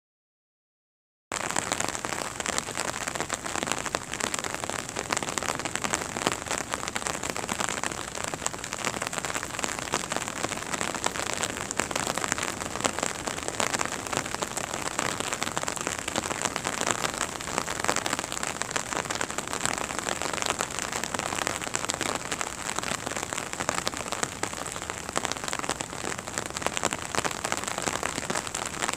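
Steady rain falling, a dense patter of drops, starting abruptly about a second in after silence.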